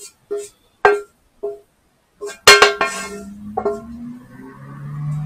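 Background music: single plucked notes, then a loud strummed chord about halfway through, followed by sustained low notes.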